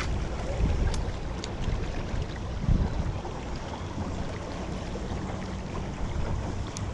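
Steady wind and water noise around a jon boat on a river, with a few low thumps against the boat, the loudest about three seconds in.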